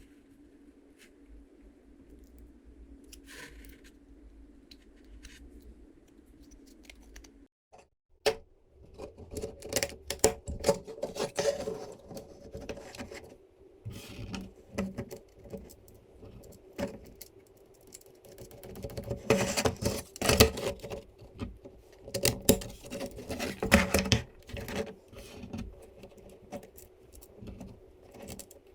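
Small hardware and 3D-printed plastic parts clicking and rattling as they are handled and fitted together during assembly. A faint steady hum for the first several seconds, then a sharp click about eight seconds in, after which the clicking and rattling runs on in busy spells.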